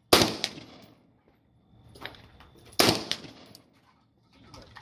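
Two single rifle shots from an AK-pattern rifle, about two and a half seconds apart, each with a short echo trailing off.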